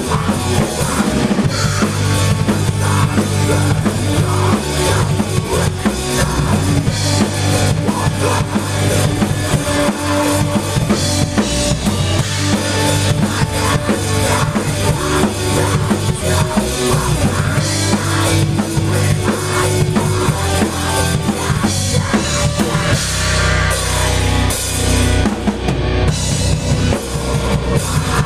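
Rock band playing loudly and continuously on drum kit with bass drum and snare, over sustained low bass notes.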